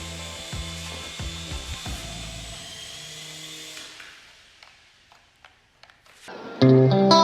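Small electric motors and rotors of a Syma S200 toy RC helicopter whirring with a steady high whine, fading away after about four seconds. Loud guitar music starts near the end.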